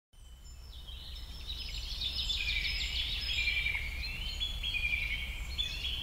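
Birds chirping: many short, high notes that step up and down in pitch, over a low steady hum. The sound fades in over the first second or two.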